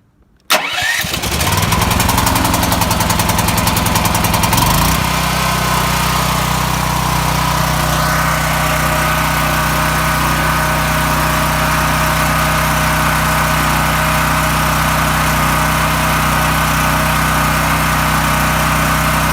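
Champion 9200-watt portable generator's gasoline engine starting on the electric start: it catches about half a second in and runs unevenly for about four seconds. Then it settles into a steady, even run.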